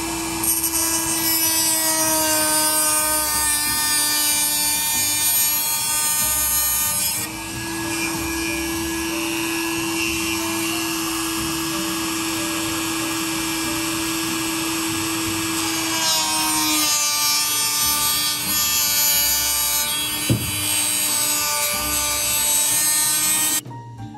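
Handheld electric drill running steadily as it drills holes through a light-aircraft door frame, a constant motor whine that shifts in tone about a third of the way in and again after two-thirds, then cuts off suddenly near the end.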